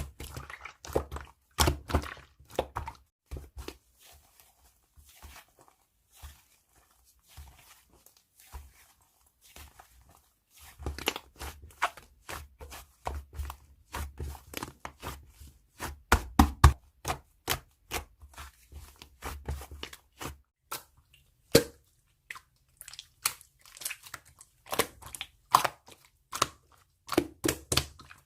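Irregular series of sharp, close-up crunches and clicks, bunched in quick runs with short quiet gaps.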